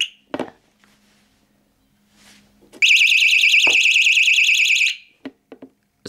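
Small battery-powered burglar alarm sounding a loud, high-pitched, fast-warbling siren tone for about two seconds, starting about three seconds in and cutting off abruptly. A few light clicks follow.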